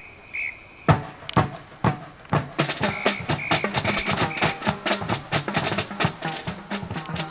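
Marching band drum line beginning its marching cadence: a few separate drum hits about a second in, building into a steady snare and bass drum beat. Short, high whistle blasts sound once near the start and four times in a row a few seconds in.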